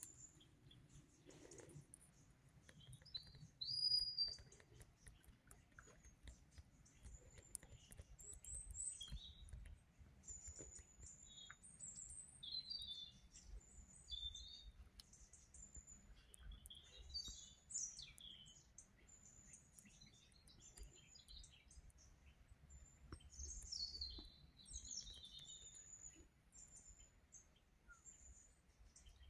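Faint birdsong: small birds giving short, high chirps and twitters scattered throughout, the loudest a brief whistled note about four seconds in.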